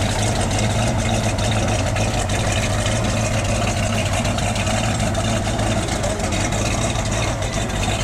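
Hemi V8 engine of a Plymouth 'Cuda muscle car idling steadily, with a deep, even rumble and no revving.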